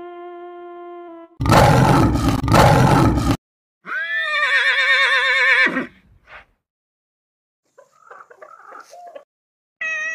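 A series of cartoon animal sound effects: a held note breaks off about a second in, then a loud, rough rhinoceros roar lasts about two seconds. A horse whinnies for about two seconds with a wavering pitch, and a cat's meow begins right at the end.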